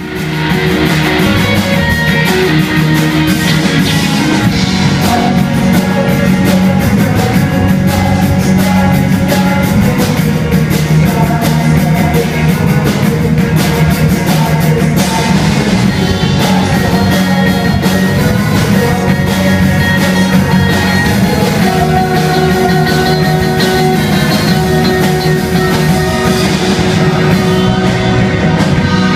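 Live rock band playing loud and steadily: electric guitars over a drum kit, with sustained guitar notes.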